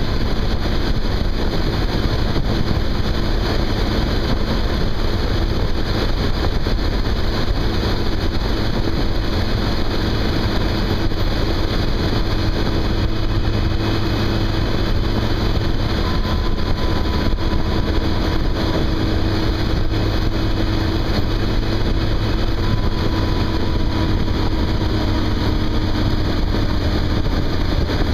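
Yamaha FJR1300 sport-touring motorcycle's inline-four engine running steadily at cruising speed, mixed with steady wind and road noise.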